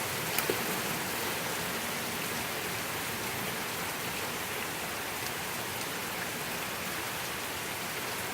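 Heavy thunderstorm rain falling steadily as an even hiss, with two sharp taps about half a second in.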